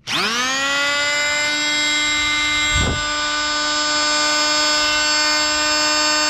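Wesco oscillating multi-tool switched on, its motor spinning up within half a second to a steady whine with many overtones, running without load at one speed.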